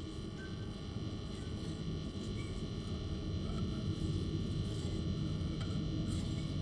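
A low rumbling drone that slowly swells louder, with faint steady high tones above it and a couple of light clicks near the end.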